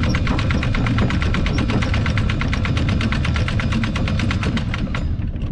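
A trawler's diesel engine running underway: a steady low rumble with a fast, even pulsing that cuts off about five seconds in.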